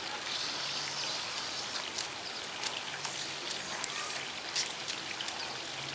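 Water from a hose-fed lawn sprinkler spraying and pattering steadily on the grass, with scattered light ticks of drops.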